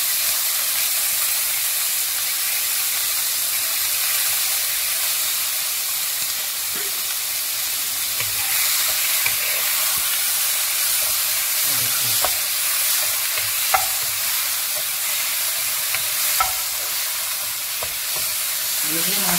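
Chicken strips sizzling steadily as they fry in oil in a wok, stirred with a wooden spoon that scrapes through them, with a few light knocks of the spoon against the pan.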